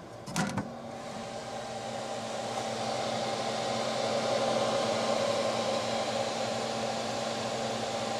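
Solidoodle 3D printer running: a steady fan whirr with a low hum under it, growing louder over the first few seconds. A brief cluster of clicks comes about half a second in.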